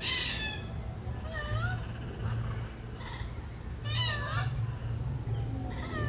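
Red-tailed black cockatoo calling: short rising calls repeated every second or so, the loudest at the start and about four seconds in, over a steady low hum.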